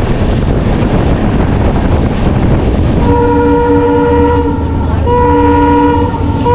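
Running noise of a moving passenger train heard from its open door, then from about three seconds in a multi-tone locomotive horn sounds in two long blasts, with a third starting at the very end, from an oncoming train approaching on the next track.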